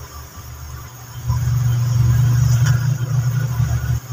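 A low, steady engine-like rumble, starting suddenly about a second in and cutting off just before the end.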